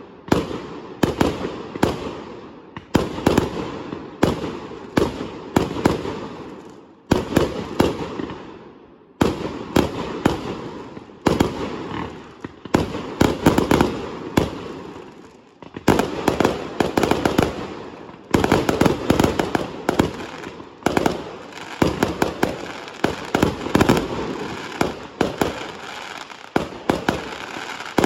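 Fireworks display: a steady run of sharp bangs, about one to two a second, each dying away over about a second before the next.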